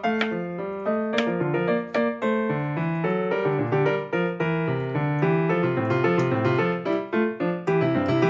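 Background piano music: a flowing melody over chords, with notes changing several times a second.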